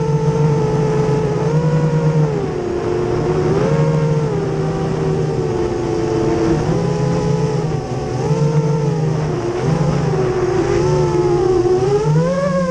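Racerstar BR2205 2300KV brushless motors of an FPV racing quadcopter whining in flight, the pitch rising and falling over and over with the throttle.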